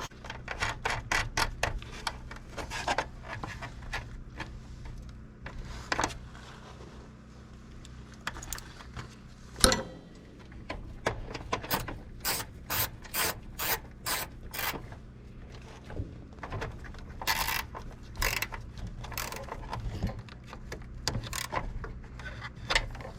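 Hand tools at work on wiring and a battery connection: a string of sharp metallic clicks and rattles, with a regular run of about two clicks a second in the middle, over a faint steady hum.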